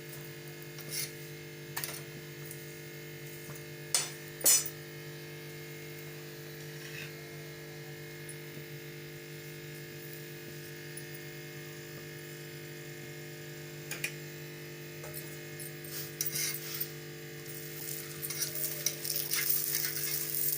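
Paratha roasting on a metal griddle (tawa): a few sharp clinks of a metal utensil against the pan, then busier scraping and faint sizzling near the end, over a steady electrical hum.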